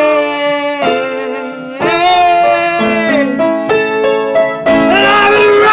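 Solo piano playing a slow song, with long sustained sung notes over it that bend slightly in pitch; a new phrase starts about five seconds in.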